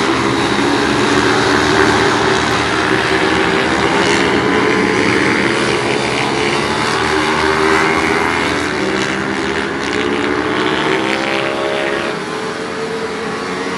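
Several pit bikes' small single-cylinder engines racing, their overlapping notes rising and falling as the riders open and close the throttle through the corners.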